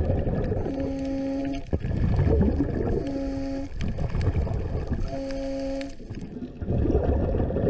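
Underwater sound of a scuba diver breathing through a regulator: bubbly, rumbling exhalations alternate with a steady humming tone on each inhalation, repeating about every two seconds.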